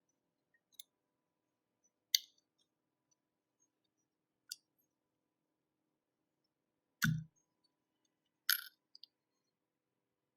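Sparse, separate clicks and taps of small hard parts being handled while a power bank is taken apart. A duller knock comes about seven seconds in.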